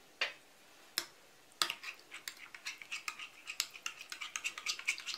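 A metal spoon clinking and scraping against a glass bowl, stirring a thick mayonnaise and cream sauce. Two single knocks in the first second, then rapid clinks and scrapes from about one and a half seconds in.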